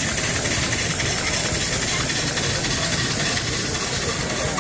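Twin-cylinder model steam engine running on compressed air, giving a steady hiss of exhaust air over a dense mechanical din.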